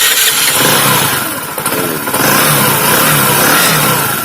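Bajaj Discover motorcycle's single-cylinder four-stroke engine running just after starting, its pitch rising and falling. The engine has been rebuilt with a new connecting rod and piston, which the mechanic says has cured its earlier knocking sound.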